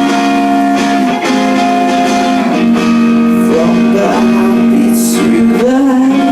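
Guitar music: an instrumental passage of a song, chords with long held notes.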